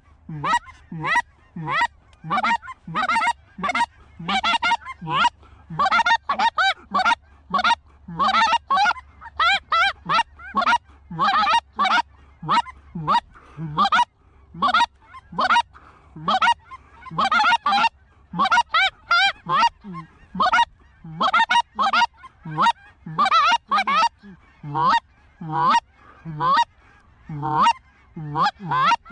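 Hand-blown goose calls working a flock: a fast, unbroken run of short honks and clucks, several a second.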